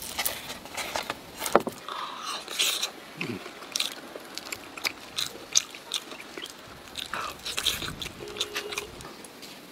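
Close-up eating sounds of a person eating a zongzi (sticky-rice dumpling) in brown-sugar syrup: chewing and mouth clicks scattered throughout, after the bamboo-leaf wrapper is peeled off at the start. A short hum near the end.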